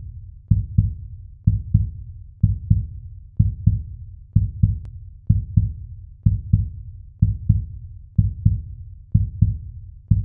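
Heartbeat sound effect: low double thumps, lub-dub, about one pair a second.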